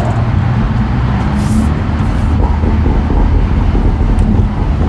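BMW 335i's turbocharged N55 inline-six engine and exhaust, fitted with a catless downpipe, running on the move and heard from inside the cabin as a steady deep rumble. A brief hiss comes about a second and a half in.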